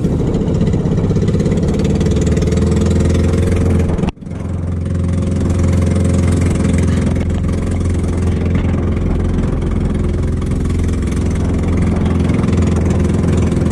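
Engine of a small motorized outrigger boat (bangka) running steadily under way, with wind and water noise over it. The sound breaks off for an instant about four seconds in and picks up again.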